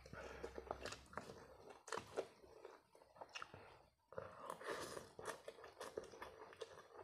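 Close-miked mouth sounds of eating pancit canton instant noodles: chewing with wet clicks and smacks, a short pause about four seconds in, then noodles slurped in.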